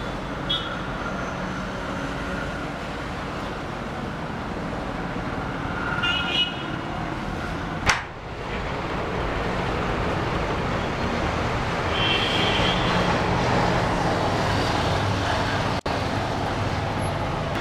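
Steady background road-traffic noise with short vehicle-horn toots, twice, and a single sharp click about eight seconds in.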